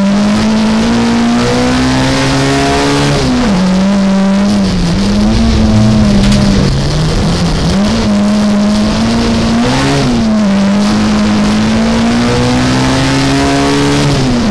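Rallycross car's engine running hard at high revs, heard from inside the cabin. Its pitch climbs slowly through each gear and drops sharply at gear changes about three seconds in and near the end, easing off and picking up again in between, over steady tyre and road noise.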